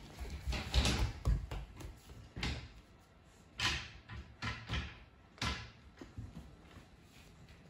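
Footsteps on a wooden floor: a handful of irregular soft thuds and scuffs.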